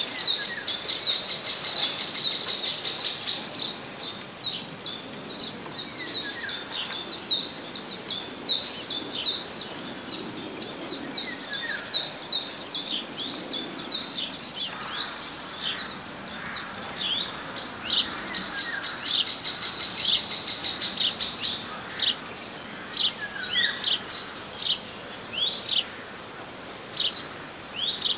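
Small songbirds chirping and calling: a dense, continuous chatter of short high notes.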